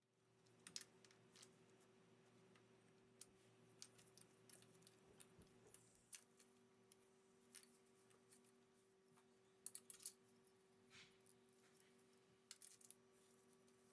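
Near silence: faint scattered clicks and light taps, a small cluster of them about ten seconds in, over a faint steady hum.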